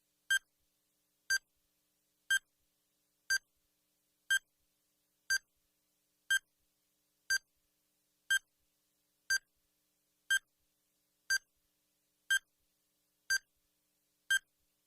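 Time-bomb countdown timer sound effect: a short, high-pitched electronic beep once a second, each the same, about fifteen in a row.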